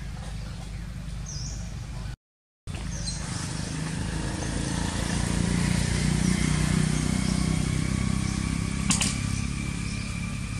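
Outdoor background with a motor vehicle, likely a motorbike, passing: a low noise that swells over a few seconds and fades away. A couple of short high chirps come near the start, and the sound cuts out for a moment about two seconds in.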